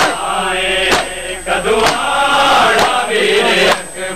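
Noha, a Shia mourning lament, chanted by male voices, with a sharp matam strike from the chest-beating mourners about once a second in time with the chant.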